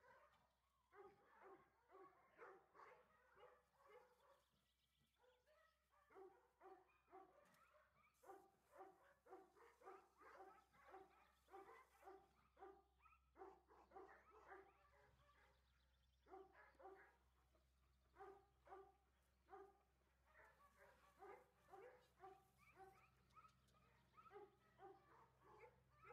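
Faint dog barking in long runs of quick, evenly spaced barks, broken now and then by short pauses.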